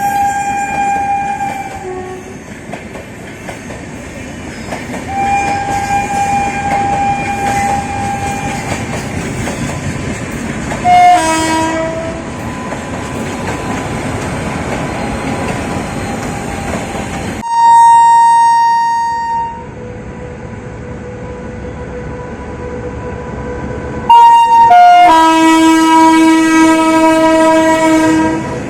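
Indian Railways locomotive horns sounding several times over the steady rumble and wheel clatter of a running train. There are held blasts in the first part, a short loud blast about eleven seconds in, then two loud blasts in the last third. The final blast is the longest.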